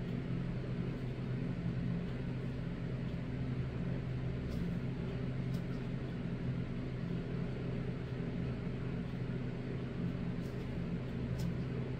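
A steady low machine hum with a few faint ticks.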